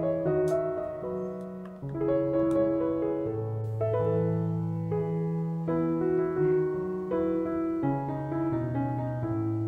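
Background piano music, slow and gentle, with held notes over a low bass line.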